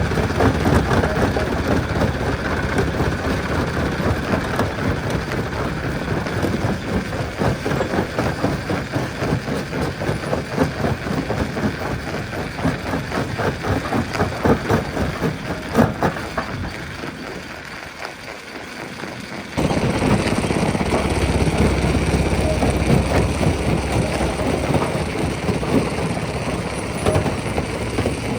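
Rock crusher at work: continuous heavy machine rumble with a dense clatter of rocks knocking and breaking. It eases off for a couple of seconds and then comes back suddenly louder, with a heavier rumble.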